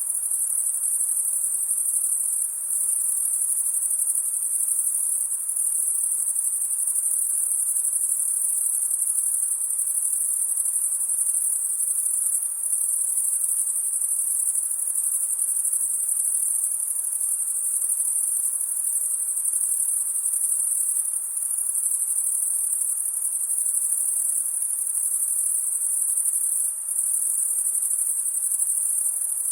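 Dense, steady high-pitched chorus of crickets on a summer night, with faint background hiss.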